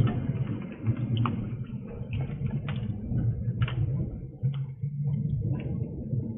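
Thunder rumbling low and rolling on after a lightning strike, picked up through a security camera's small microphone, with scattered sharp ticks over it.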